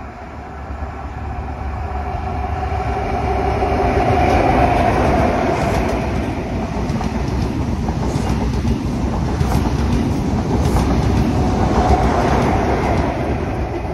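A diesel High Speed Train, a Class 43 power car hauling Network Rail measurement coaches, passing at speed. Its engine drone builds to a peak about four seconds in, then the coaches' wheels clatter over the rail joints, with a second swell near the end.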